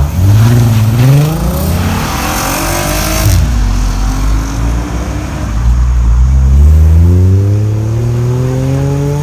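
Car engine accelerating hard, its pitch climbing for about three seconds before cutting off sharply. After a short drop, a second steady climb in pitch builds toward the end.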